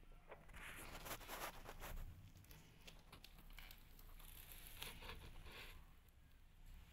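Near silence with faint rustling and soft scattered clicks.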